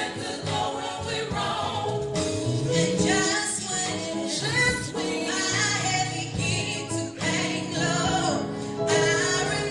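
Gospel group singing with several voices over instrumental accompaniment, continuous throughout.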